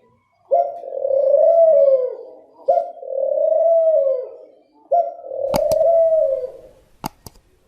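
A dove cooing: three long, drawn-out coos in a row, each about two seconds, rising a little and falling away at the end. A few sharp clicks come near the end.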